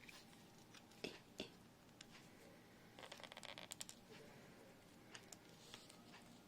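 Near silence with faint handling noises from a doll being turned over in the hands: two soft clicks about a second in, then a brief run of rapid small clicks and rustles about three seconds in.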